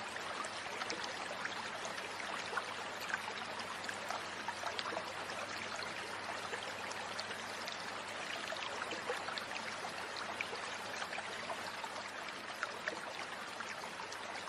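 Shallow rocky stream running steadily over stones, with scattered small splashes and clicks as stones are shifted in the water.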